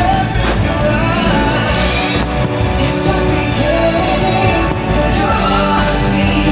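Music: a song with a singing voice over full band accompaniment.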